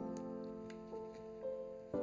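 Background music: soft piano chords with a simple melody. A new chord is struck at the start and again near the end, with single notes in between.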